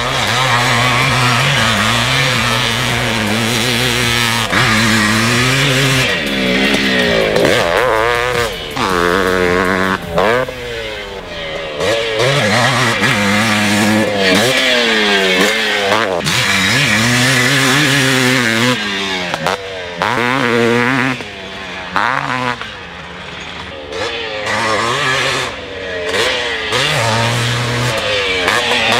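1983 Honda CR480R's big-bore single-cylinder two-stroke engine ridden hard, its pitch rising under full throttle and dropping off again and again as the rider shifts and chops the throttle. It goes quieter for a couple of seconds about three quarters of the way through.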